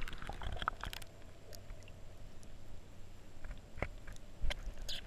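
Muffled underwater sound picked up inside a GoPro Hero 3's waterproof housing: a low rumble of water with a few scattered sharp clicks and taps.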